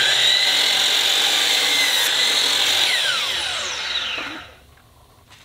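DeWalt 12-inch sliding compound miter saw with a Diablo 44-tooth blade running at full speed with a steady high whine as it makes a 45-degree cut through maple. About three seconds in the trigger is released, and the whine falls in pitch as the blade spins down, dying away about four and a half seconds in.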